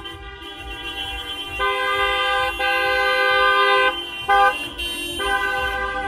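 Car horns honking in long, steady blasts with short breaks and one brief toot between them: the celebratory honking of a wedding convoy setting off.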